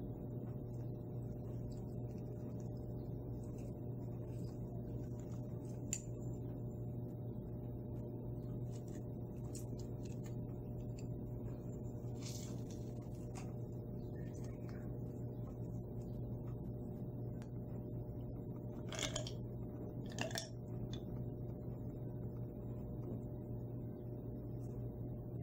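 Faint steady hum with a few soft clicks and two short rustling sounds about three-quarters through, from a metal hand citrus press squeezing lime halves over a glass jar of ice.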